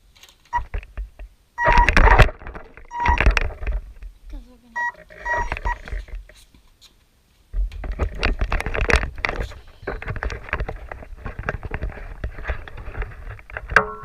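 Several short electronic beeps in the first half, between bursts of rattling. From about halfway, an RC car runs with a continuous dense crackling rattle.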